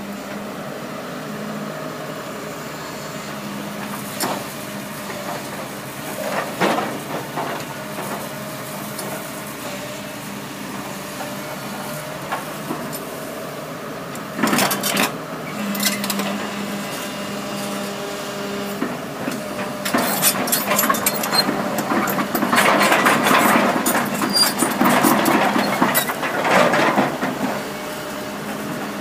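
Kobelco SK300 LC hydraulic excavator's diesel engine running steadily, with occasional metal clanks as the machine works and a long stretch of heavy clanking and rattling in the last third.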